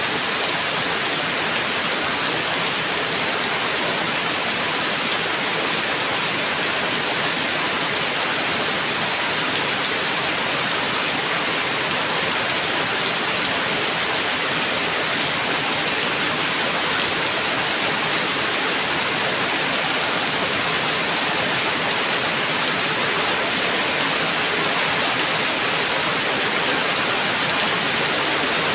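Heavy rain falling steadily, an even, unbroken hiss of rain with no thunder.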